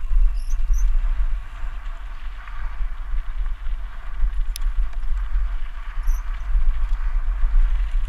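A mountain bike descending a gravel trail: wind buffets the helmet camera's microphone over the steady noise of the tyres rolling on gravel. A few short high squeaks come from the bike, and there is one sharp click about four and a half seconds in.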